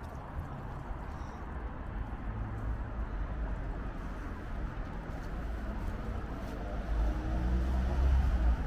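Wind rumbling on the microphone over street noise. A car on the road comes closer near the end, and the low rumble grows louder.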